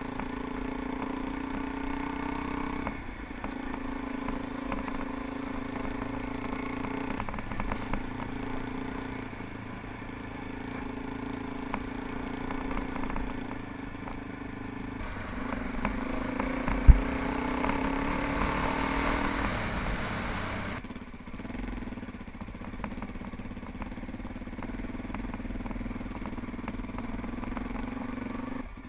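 Suzuki DR-Z400E's single-cylinder four-stroke engine running on a trail ride, its note shifting with the throttle. It gets louder and fuller for several seconds past the middle, then drops back. A single sharp knock comes during the loud stretch.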